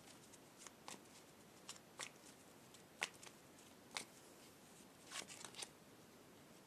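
Tarot deck being shuffled by hand: faint, irregular soft card clicks and slaps, with a quick cluster of them about five seconds in.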